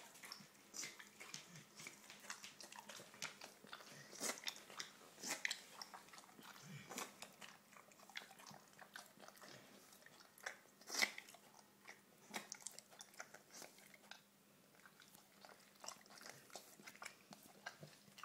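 A dog licking and chewing: faint, irregular wet smacks and clicks of tongue and lips, a few of them louder.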